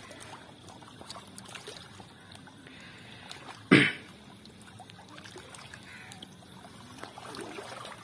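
River water lapping at a rocky bank, with one short, loud splash a little under four seconds in, as a hooked mangrove jack is brought to the bank's edge.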